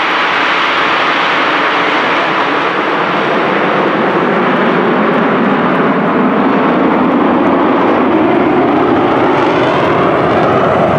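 A formation of Aermacchi MB-339 PAN jet trainers passing overhead, their turbojets giving a steady jet noise. The sound grows slightly louder and falls in pitch through the second half as the formation dives low.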